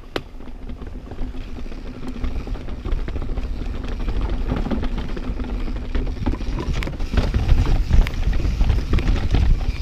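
Mountain bike riding fast down a wet trail: heavy wind rumble on the microphone and tyre noise on dirt, with sharp knocks and rattles from the bike over bumps. It grows louder about two-thirds of the way through.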